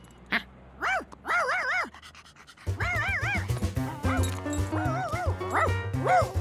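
Cartoon dog's high, wavering yips and whines in several short calls, over playful background music whose bass line comes in about two and a half seconds in.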